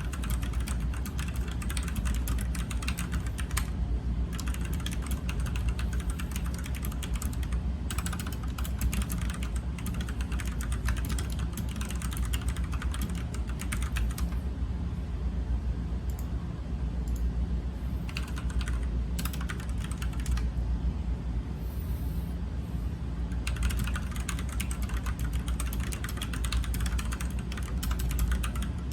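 Typing on an Ajazz K680T mechanical keyboard with linear red switches (Chinese Gateron clones): a fast, steady stream of key clacks that thins out for several seconds midway before picking up again.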